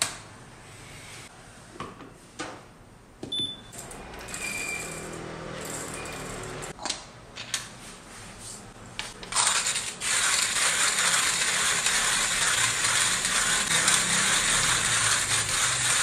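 Hand coffee grinder being cranked: a loud, steady crunching rasp of beans being ground, starting about nine and a half seconds in. Before it come scattered clicks and knocks as the grinder is handled and set down.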